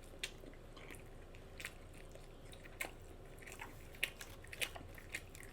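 Close-miked chewing of a burger with the mouth open: soft, wet smacking clicks in an uneven rhythm, several a second.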